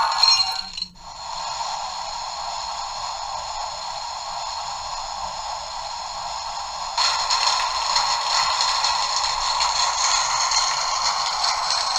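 Dapol water tower's sound module playing a recorded rush of water through its small built-in speaker: a steady, thin hiss with no bass. It cuts out briefly about a second in and grows louder about seven seconds in.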